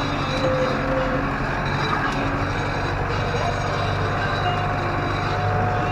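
Tractor engine running steadily under load while pulling a field roller.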